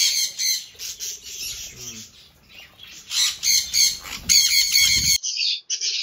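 Parrots in an aviary chirping and squawking in quick runs of high, repeated calls, stopping suddenly about five seconds in.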